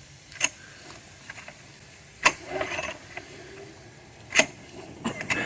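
Recoil starter cord of a petrol push lawnmower pulled three times, about two seconds apart, each a short sharp rasp. The engine does not catch: the pulls are too weak to start it.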